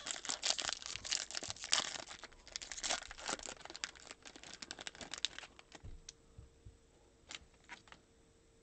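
Foil wrapper of a Panini Prizm basketball hobby pack crinkling and tearing open by hand. Near the end come a few light clicks as the freed stack of cards is handled.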